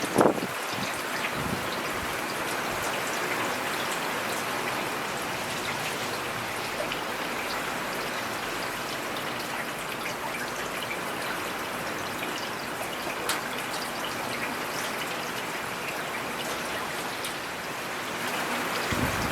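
Steady rain falling in a forest, with scattered individual drops ticking through the even hiss. There is a brief louder burst right at the start, and the rain swells again near the end.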